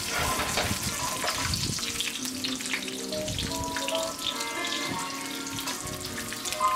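Fish fillet sizzling steadily in olive oil in a frying pan on medium heat, a fine crackle of frying. Soft background music notes come in over it about two seconds in.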